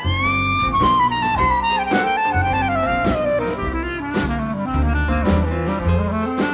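Jazz music: a horn plays a melody that climbs briefly, then steps downward, over bass and drum kit.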